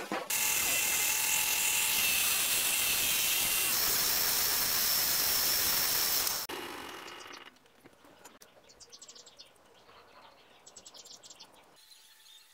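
Electric grinder spinning a buffing wheel while a 5160 spring-steel knife blade is polished against it: a loud, steady whine over a hiss. About six seconds in it cuts out and runs down over the next second, leaving only faint light clicks.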